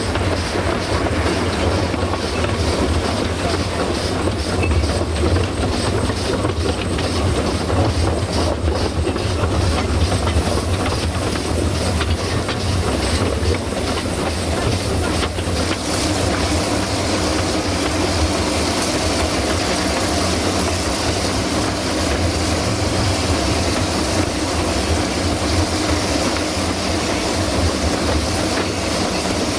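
Narrow-gauge steam train rolling along: a steady low rumble of the carriage wheels on the track, with rail-joint clickety-clack. About halfway through, a higher hiss grows louder.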